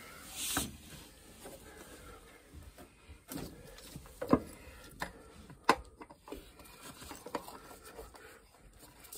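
Scattered, irregular knocks and clicks of hard objects being handled, with a short hiss about half a second in. Two sharper knocks in the middle are the loudest.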